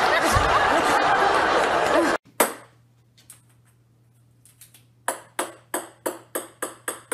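A small ball bouncing on a wooden floor. The knocks begin a little past halfway, about three a second, then come faster and fainter as the bounces die down. Before that there is a busy stretch of voices and laughter, which stops abruptly about two seconds in, followed by a single click and a faint low hum.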